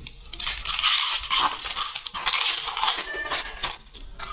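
Close-miked ASMR handling sounds of food and its packaging: rapid crisp crackling broken by many quick clicks and clinks.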